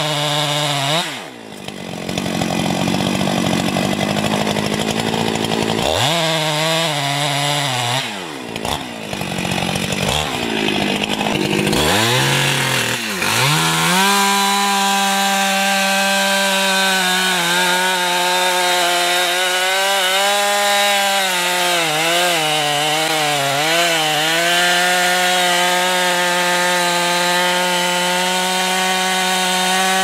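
Two-stroke chainsaw cutting into a large tree trunk. Its revs drop and climb again several times in the first half, then it holds at high revs in the cut, wavering slightly under load.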